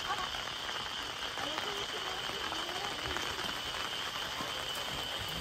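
Light rain falling steadily as an even hiss, with a continuous high-pitched insect drone over it. A faint voice comes through briefly in the background.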